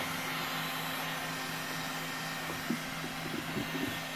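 Electric heat gun blowing steadily: an even fan-like hiss over a low hum, warming freshly brushed epoxy to soften it and lift out bubbles. A few faint light taps from about two and a half seconds in.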